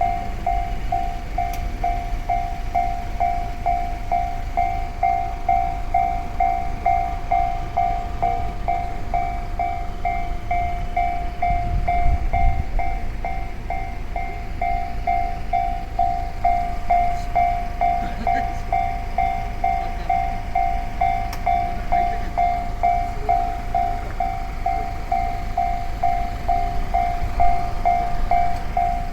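Japanese railway level-crossing alarm ringing steadily at about two strokes a second, over the low rumble of a passing train.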